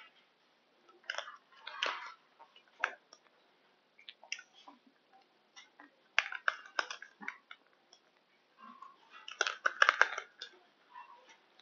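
Close-up eating sounds: a metal fork clicking and scraping in a plastic yogurt cup, mixed with mouth noises, in short irregular bursts with the busiest cluster near the end.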